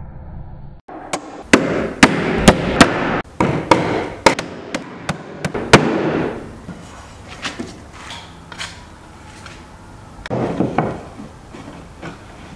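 Hammer driving nails into wooden boards: a run of about ten sharp blows in the first half, then lighter scattered knocks on the wood.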